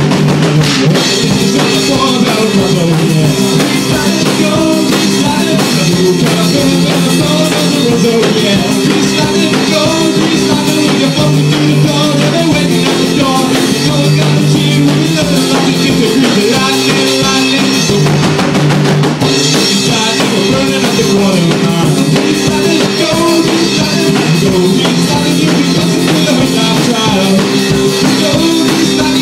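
Band playing an instrumental rock-and-roll passage with no singing, the drum kit keeping a steady beat with snare and bass drum under sustained low notes.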